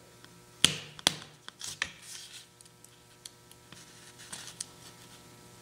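Small sharp clicks and taps of miniature ball bearings being handled and pressed by hand into an aluminium steering knuckle, a few scattered ticks with the loudest about a second in.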